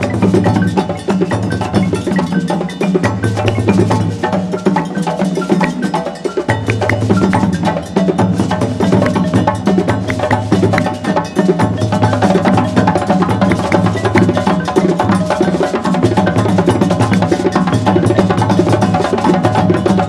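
West African percussion ensemble playing a fast, dense rhythm on djembes and a row of standing bass drums, with a balafon's wooden keys ringing over them.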